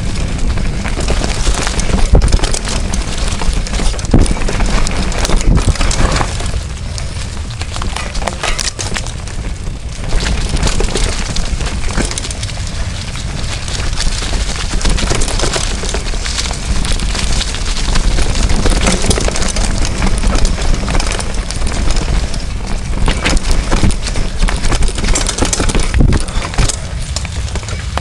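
Mountain bike riding fast downhill over a rough dirt trail: the frame and parts rattle and clatter with many sharp knocks from the bumps, while wind buffets the microphone with a steady low rumble.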